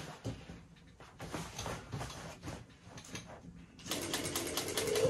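Old Japanese-made Juki industrial sewing machine: faint rustling and knocks as stiff, crinkly banner material is shifted under the needle, then the machine starts up nearly four seconds in, running a fast series of stitches with a steady motor hum.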